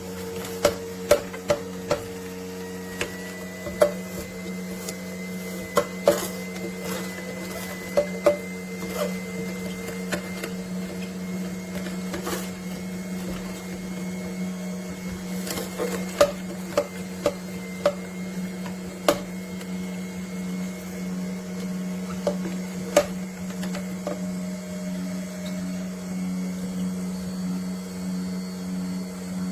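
AMZCHEF slow cold-press (masticating) juicer running with a steady low motor hum, broken by irregular sharp cracks and snaps as produce is crushed by the auger.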